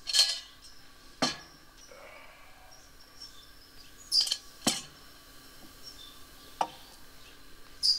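About six separate clinks and knocks, spaced a second or more apart, as camp gear is handled on a wooden picnic table, including a metal thermos being set down.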